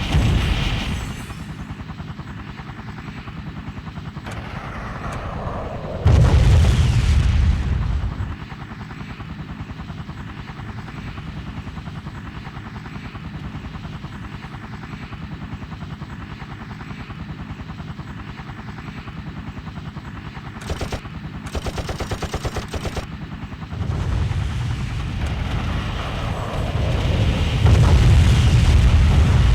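Helicopter combat sound effects: a helicopter's rotor chop runs throughout, with a heavy boom about six seconds in, a burst of rapid machine-gun fire about twenty-one seconds in, and explosions swelling in from about twenty-four seconds on.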